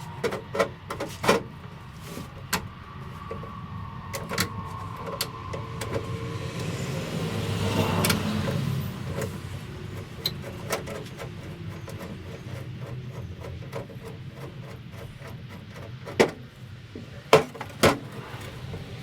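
Scattered knocks and clicks of parts and tools being handled, over a steady low hum. A broad rushing sound swells and fades midway through.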